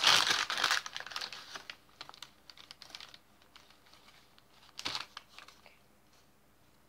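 Clear plastic food wrapping crinkling as it is handled, loudest in the first second, then scattered small crackles and clicks with a short louder rustle about five seconds in.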